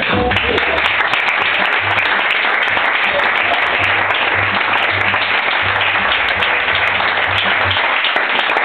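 Audience applauding steadily right after a song ends.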